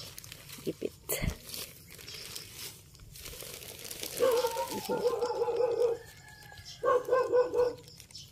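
Clear plastic sheeting over a mushroom bed crinkling as hands work under it, with a sharp knock about a second in. From about four seconds in, a wavering voice-like sound is held for nearly two seconds and comes again briefly near the end.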